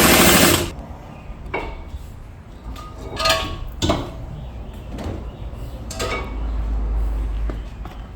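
Metal tools and brake parts clinking and knocking during a brake pad and rotor replacement, several separate strikes, some with a short metallic ring. A loud harsh scraping noise stops just under a second in, and a low rumble comes about six seconds in.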